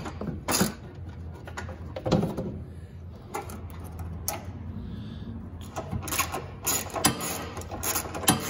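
Hand ratchet with a 10 mm socket clicking as it turns a headlight mounting bolt, in short runs of clicks that come thickest in the second half, with knocks from handling the tool and the plastic and metal parts.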